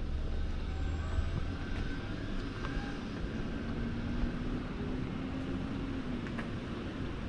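City street traffic: a vehicle's low rumble, strongest in the first second and a half, then a fainter steady engine hum.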